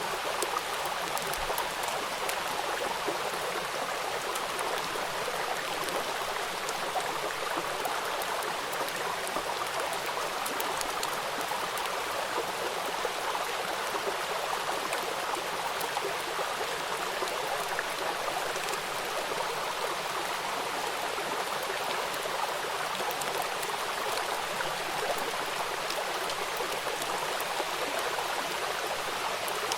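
Steady rain: an even hiss of falling water with many faint drop ticks.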